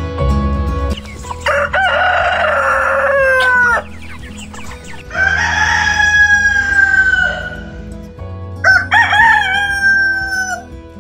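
Rooster crowing three times, each a long cock-a-doodle-doo that holds and then falls in pitch at the end.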